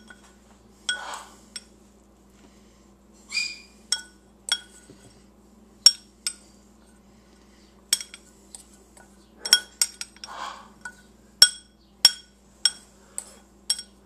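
Glass mixing bowl clinking repeatedly as a utensil scrapes the rice and bean mix out of it. There are about fifteen short ringing clinks at irregular intervals, with a few soft scrapes between them.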